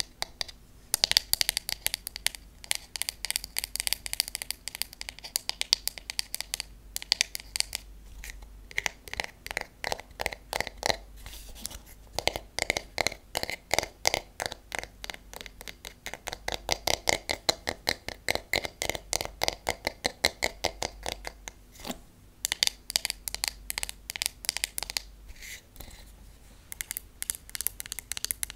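Long fingernails tapping rapidly on a wooden paddle hairbrush's back and handle: quick flurries of light, sharp wooden clicks with a few short pauses.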